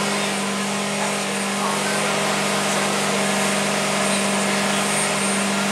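Megabot Mk.III's LS3 Corvette V8 engine running with its hydraulic pumps in gear at pressure: a steady hum at one pitch over a loud, even rush of machine noise.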